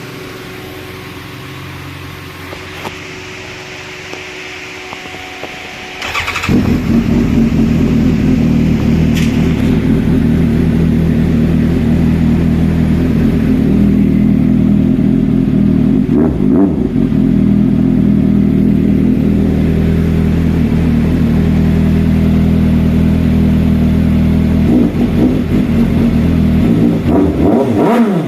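Suzuki GSR motorcycle engine starting about six seconds in and then running steadily, loud and even. Before it starts there is a quieter steady hum.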